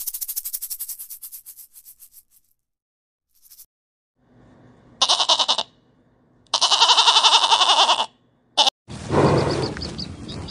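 A goat bleating twice: a short bleat about five seconds in, then a longer, quavering one. Before that, a rapid high pulsing sound fades out in the first two seconds. Near the end a dense, noisy sound starts.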